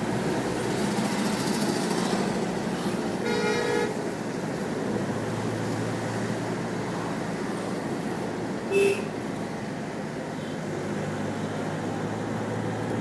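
Car driving in city traffic, heard from inside the cabin: a steady engine and road hum, with a vehicle horn sounding for under a second about three seconds in and a short, louder horn toot about nine seconds in.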